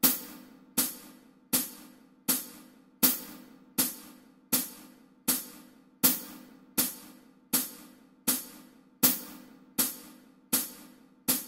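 Steady percussion click track, a sharp hi-hat-like tick on every beat at about 80 beats a minute, each tick ringing out briefly. It counts through the rest bars of the accompaniment.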